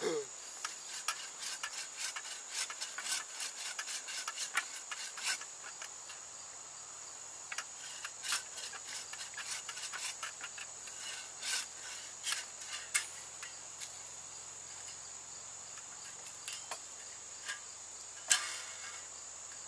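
A saw cutting into wood in short, irregular rasping strokes, frequent in the first few seconds and sparser later. A steady high insect trill runs underneath.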